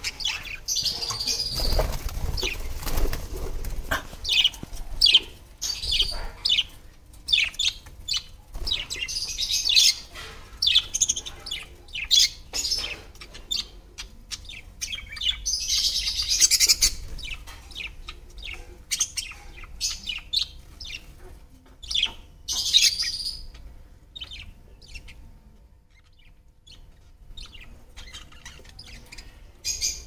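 Budgerigars chirping and chattering, many short high calls coming in quick flurries with brief lulls, thinning out near the end.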